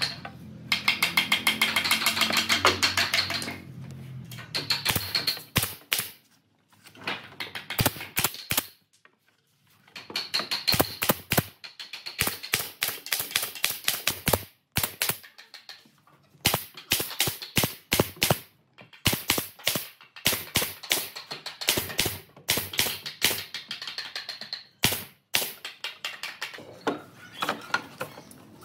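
Pneumatic nail gun firing nails into pine boards, one sharp shot after another in quick runs separated by short pauses.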